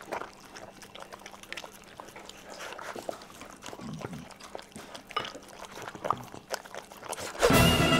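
Dogs eating wet food from stainless steel bowls: irregular chewing and lapping with small clicks against the metal. Loud music starts in near the end.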